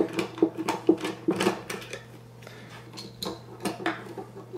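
Clicking and light rattling of hard plastic being handled: a 120 mm fan frame and its connectors on a radiator, the taps thick for about two seconds and then only a few. A steady low hum lies underneath.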